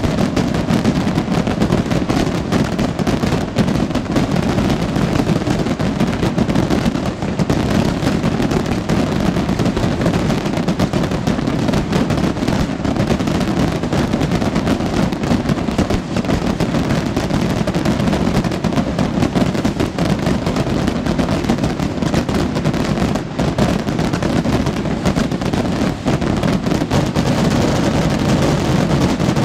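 Massed firework rockets (voladores) exploding in an unbroken barrage, countless bangs running together into one loud, continuous crackle over a deep rolling rumble.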